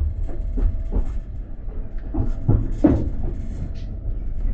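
Sleeper train running on the rails, heard from inside the compartment: a steady low rumble with irregular knocks and rattles.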